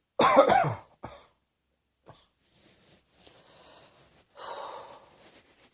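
A person coughs once, loud and voiced, with a short smaller cough right after. They then breathe audibly, with a louder breath about four and a half seconds in.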